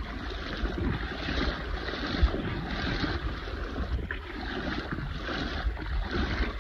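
Wind buffeting the microphone: a steady rushing with uneven low rumbling gusts.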